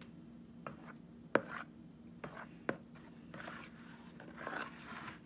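Spatula stirring and scraping thick, wet slime of glue and activator in a plastic bowl, with a few sharp taps of the spatula against the bowl, the loudest about a second and a half in. A faint steady hum runs underneath.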